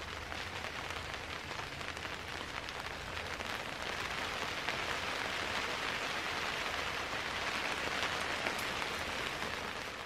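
Snowstorm precipitation pattering on the canvas of a tent: a dense, steady hiss of many tiny ticks that grows a little louder partway through.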